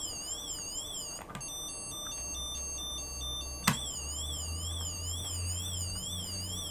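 LEGO 9V sound brick playing electronic siren sounds: a thin, high-pitched tone warbling up and down about two or three times a second. About a second in it changes to a stepped beeping pattern of alternating pitches. After a click a little under four seconds in, the warble returns.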